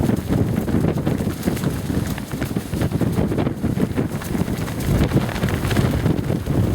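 A windstorm buffeting the microphone with a heavy, gusting rumble, over the rapid irregular flutter of wind pants flapping in the wind.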